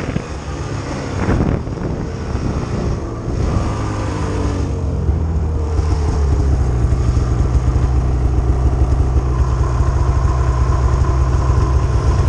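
Snowmobile engines: falling in pitch as the sled slows in the first couple of seconds, then running at a steady low note from about halfway.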